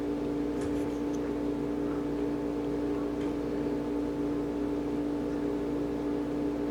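A steady, unchanging machine hum, with a few faint light clicks about half a second to a second in.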